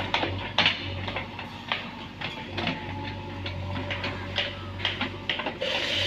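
JCB 3DX backhoe loader's diesel engine running steadily, with irregular sharp metallic clanks and knocks as the backhoe arm and bucket work.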